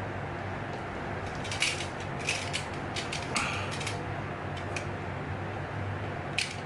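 Small knife scraping and cutting at the fixed moulded plastic sleeve of an earphone jack: a run of short scraping strokes, then one more near the end, over a steady low hum.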